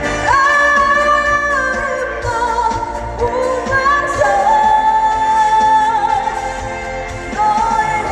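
A female singer holding long, slightly wavering notes over a live pop-rock band, with the melody stepping to a new pitch every second or two.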